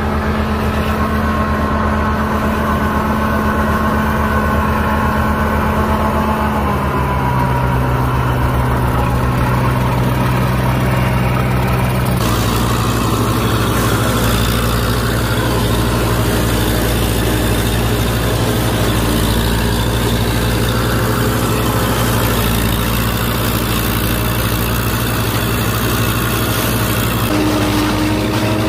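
IMT 558 tractor's diesel engine running steadily while it powers an SIP SK 80 forage harvester chopping dry corn for silage. The engine note shifts about a quarter of the way in, changes abruptly near the middle and again near the end.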